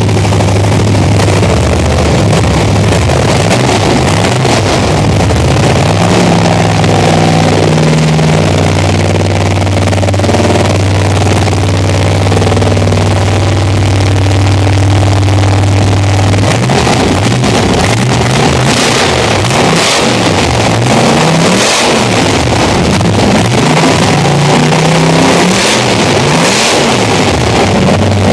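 1933 Ford hot rod's engine idling steadily, then revved in a series of short blips over the last third, the pitch climbing and falling with each one.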